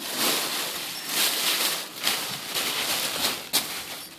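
Plastic shopping bags rustling and crinkling in uneven surges as a kitten scrabbles about inside the pile; the noise starts suddenly.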